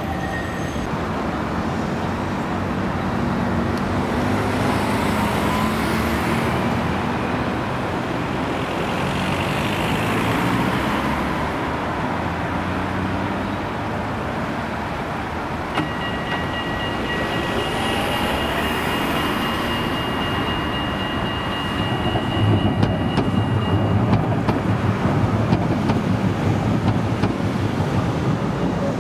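Trams and street traffic moving through a tram junction, then an HTM articulated tram passing close by, its wheels rumbling and rattling on the rails, louder from about twenty-two seconds in. A steady high whine sounds for several seconds from about sixteen seconds in.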